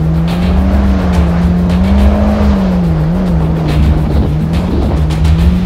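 Yamaha GP1800R SVHO jet ski's supercharged four-stroke engine running at cruising speed, its pitch wavering slightly as the throttle shifts. Heavy wind rumble and hull spray come with it.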